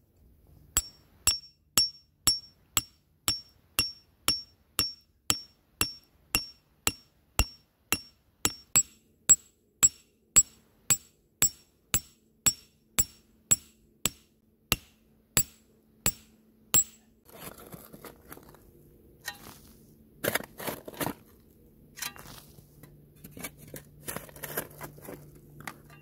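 A hand-held metal tool chipping into frozen, stony soil at steady strokes, about two a second, each with a short high ring. About 17 seconds in the strikes stop, and the loosened earth and stones are scraped and shovelled out, with a few louder scoops.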